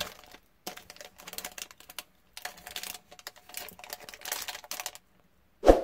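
Small electronic modules in plastic packets being handled and sorted: irregular runs of light clicks and crinkles, with a louder knock near the end.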